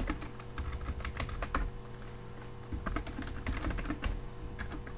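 Typing on a computer keyboard: quick, irregular key clicks with short pauses.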